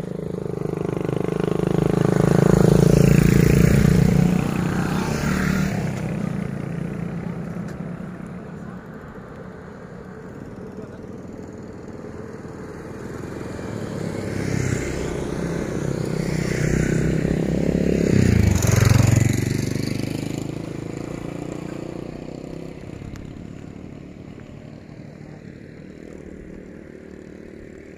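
Two motorcycles passing on the road, each engine growing louder and then fading away, the second some fifteen seconds after the first.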